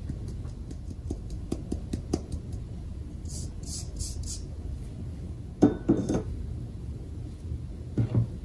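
Kitchenware clinking during baking preparation: a run of light taps, four short brushing strokes about three seconds in, then louder knocks about five and a half seconds in and again near the end.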